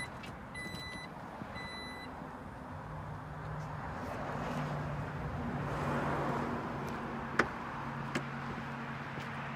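2017 Jeep Grand Cherokee power liftgate closing: it gives three short warning beeps at the start, runs down over a steady low hum, and shuts with a sharp latch click about seven seconds in.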